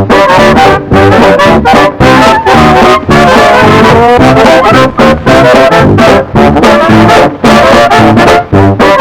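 Background music with brass (trombone and trumpet) playing a melody over a steady beat, with a short sliding brass run about four seconds in.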